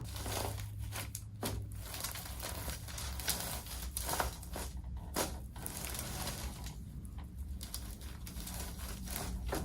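Soft, continuous rustling and crinkling of movement on a chiropractic treatment table, with a few faint sharper ticks.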